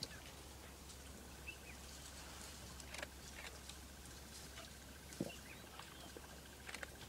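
Quiet bush ambience: faint short bird chirps, scattered small clicks and rustles, and a low steady hum, with a soft knock about five seconds in.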